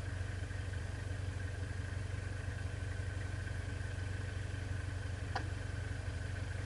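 Four-wheel-drive vehicle's engine idling steadily with a low hum, with one short click about five seconds in.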